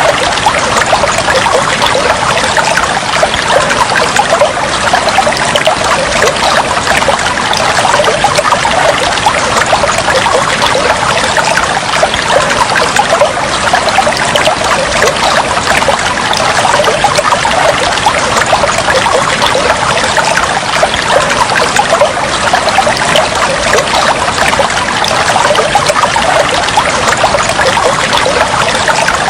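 Water trickling and flowing steadily, a continuous dense patter of small splashes that stays even throughout.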